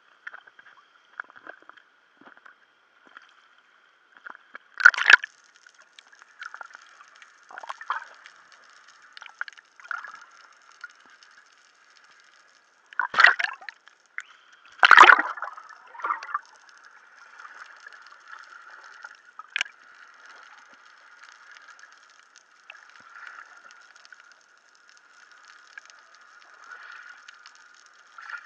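Water sloshing and splashing against a camera in a waterproof housing, with a muffled, boxy sound. Several loud splashes come about five seconds in and twice around the middle, as swimmers move and the camera dips under the surface. After that, softer gurgling and bubbling carries on.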